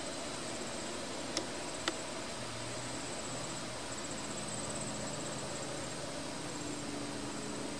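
A faint, high-pitched, pulsing insect trill that comes and goes over a steady hiss, with two sharp clicks half a second apart about a second and a half in.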